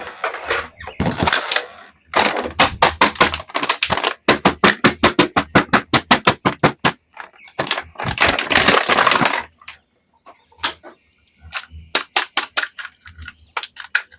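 Rapid bursts of sharp clicks and crackles, each run lasting a second or two, with short gaps between them.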